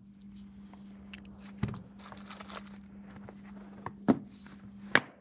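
Quiet handling noise, rustling with a few sharp clicks and knocks, over a steady low hum.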